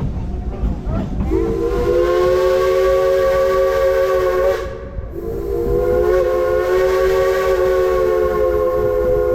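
Steam locomotive whistle blowing two long blasts, each a chord of several steady tones, the second starting about half a second after the first stops and running past the end. The train's running rumble continues underneath.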